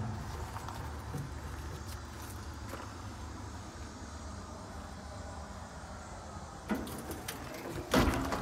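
Low steady background rumble, then near the end a knock and a couple of loud thuds as a metal service-body compartment door is swung shut and latched.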